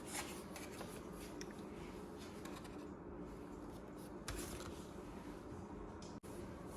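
A sheet of paper being handled and folded by hand: a run of short crinkles and scrapes as it rustles and is creased, over a steady low hum.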